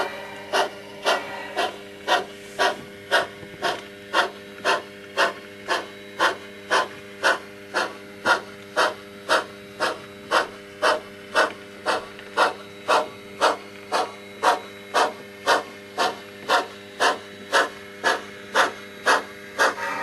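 Steam exhaust chuffs from an HO-scale Pennsylvania Railroad 0-6-0 switcher's sound decoder, played through its small onboard speaker. The chuffs come at an even pace of about two a second, over a faint steady hum.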